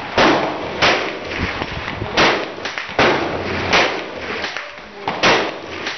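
Rifle shots: about six sharp reports at irregular intervals, each trailing off briefly.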